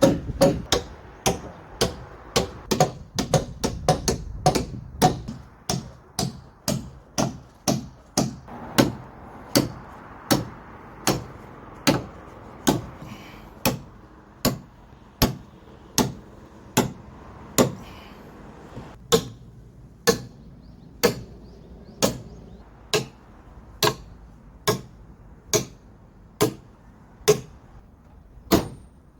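Hammer strikes in a steady rhythm, about two a second at first and slowing to a little over one a second in the second half, as in driving or tapping during timber-frame carpentry.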